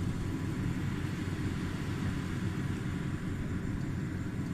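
Rice combine harvester running steadily: a constant low engine rumble with machinery hiss above it.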